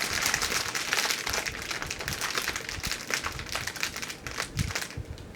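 Wrapping paper crinkling and rustling as it is handled and pulled open, a dense run of crackles that eases off near the end.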